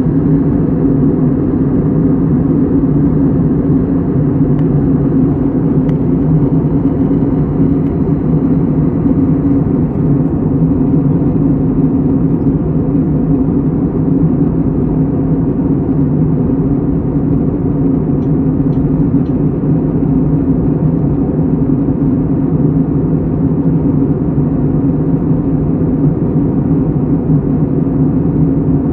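Steady low rumbling noise played as a white-noise track, with a constant deep hum in it and no swells or breaks.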